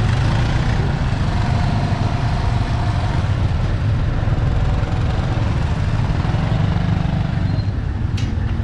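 Small motorbike engines running at low speed close by in a crowded street, a steady low rumble, with faint distant voices and a brief sharp tick near the end.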